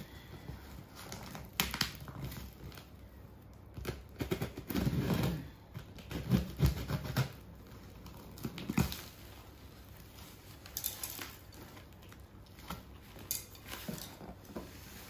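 A blade slitting packing tape on a cardboard box, with irregular scraping, tearing and rustling of tape and cardboard. The louder scrapes come in the middle, and the cardboard flaps are pulled open near the end.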